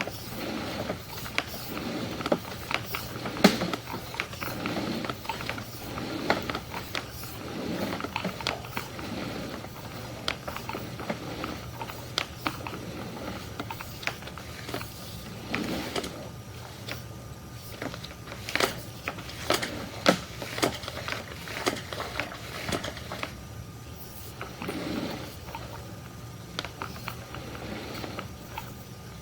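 Sewer inspection camera and its push cable being fed down a sewer line: irregular clicks, knocks and scrapes over a steady low hum.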